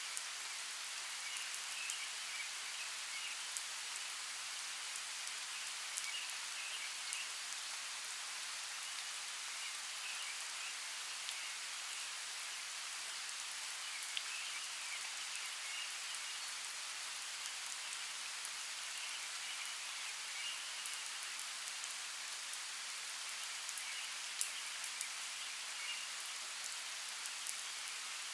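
Steady rain falling, with scattered sharp drop ticks, and faint repeated high chirps in the background.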